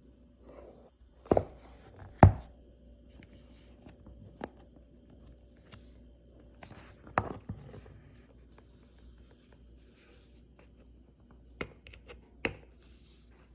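Cardboard phone box and packaging being handled: a scattering of sharp taps and knocks, the loudest about two seconds in, with light scraping and rustling between them.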